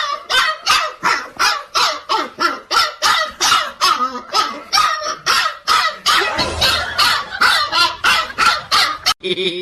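A dog barking rapidly and without pause, about three to four barks a second, stopping abruptly near the end.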